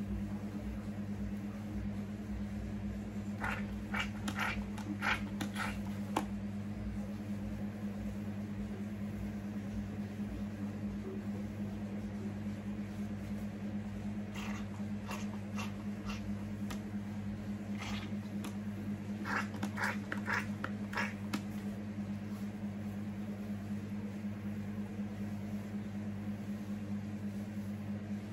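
Handheld spray bottle spritzing several times in quick pumps, in two groups, the second a little after the middle, over a steady low electrical hum.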